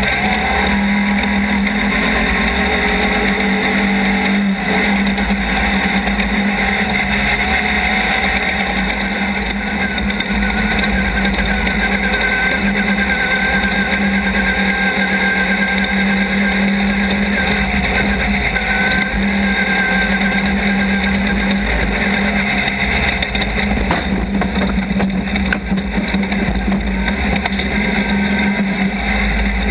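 Off-road race car engine running hard at a loud, steady pitch, with a dense rushing noise under it.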